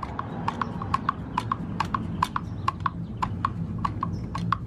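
Ratchet wrench clicking in quick short strokes, about five clicks a second, as a bolt at the shifter shaft support is worked in a cramped spot behind the step bar.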